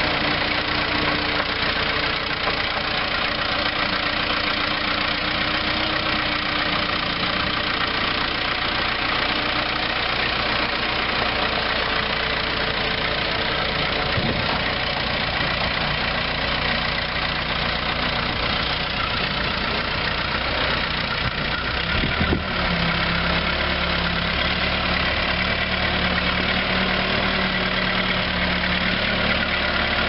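Case 4-390 four-cylinder diesel engine of a Case 580 Super E backhoe running steadily at idle. About two-thirds of the way through there is a brief clunk, after which its low note shifts slightly.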